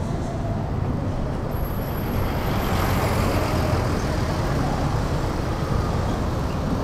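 Large tour coach passing close by in the street, its engine and tyre noise swelling about two seconds in over steady road traffic with motorcycles, with a brief high hiss around the same moment.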